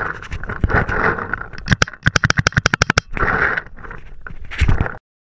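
Paintball fire: scattered sharp cracks, then a quick string of about ten a second lasting about a second, over rustling and knocking from the camera mounted on the paintball marker.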